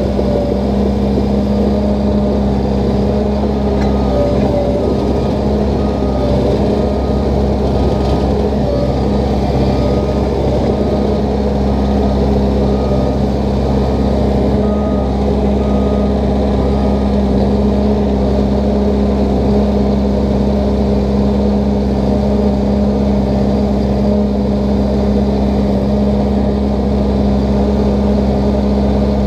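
Small crawler dozer's diesel engine running steadily while the machine tracks across the ground. A faint, evenly repeating high beep sounds for about twelve seconds in the first half.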